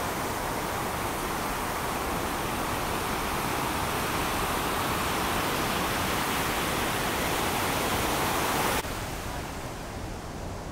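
Heavy ocean surf breaking, a steady rush of whitewater noise. About nine seconds in it drops suddenly to a quieter, duller wash of waves.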